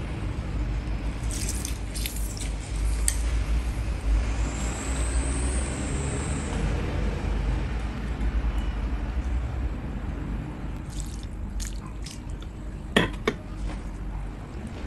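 Food handled by hand on a steel tray: a lime half squeezed over rice, fingers dipped into gravy and mixing the food, with soft wet squishing and drips and a few light clinks, the sharpest near the end. A steady low rumble sits under it.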